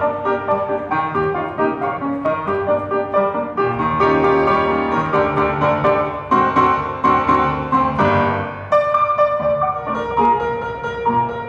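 Solo piano music, notes and chords struck at a regular pulse.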